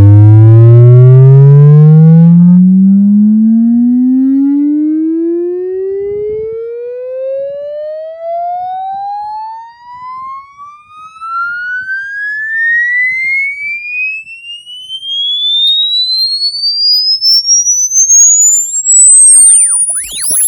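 DiamondBoxx XL3 Bluetooth speaker playing a sine-wave sweep test tone: a single tone gliding steadily upward from the bass to a very high pitch. It is loudest and buzzy with overtones in the low part, then grows thinner and uneven in loudness as it climbs.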